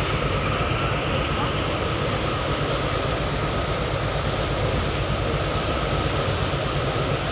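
A passenger ship under way: the steady low rumble of its engine with the rush of the churning wake, and a thin steady tone running above it.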